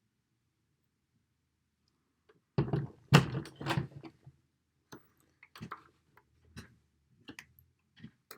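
Hand-tool handling at a workbench: a burst of knocks and clatter about two and a half seconds in, then scattered light clicks and taps, as a screwdriver is handled and set against the small plastic interface housing.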